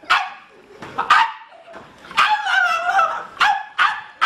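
Repeated barking and yelping: short, sharp barks every half second to a second, with a longer wavering yelp about two seconds in.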